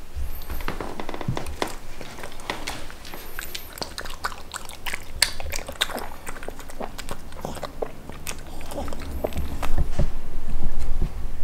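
Miniature pinscher chewing food from a bowl: a close, continuous run of wet chewing clicks and crunches, louder near the end.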